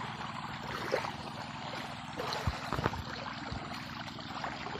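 Lake water sloshing and lapping around a man wading in the shallows with a landing net, with a few short splashes, over a steady low hum.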